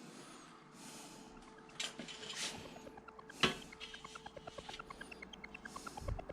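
Bicycle rear hub freewheel ratcheting as the hub turns backward: an even run of small clicks, about eight a second, through the second half, after a sharp knock of the parts being handled. This is the Koozer BM440 boost hub, a 72-click freehub.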